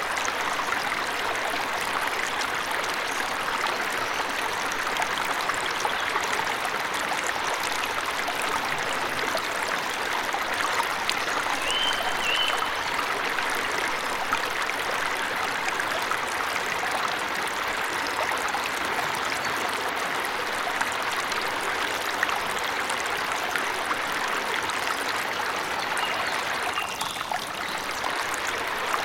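Waterfall rushing steadily. A short pair of high bird chirps sounds about twelve seconds in, and again a few seconds before the end.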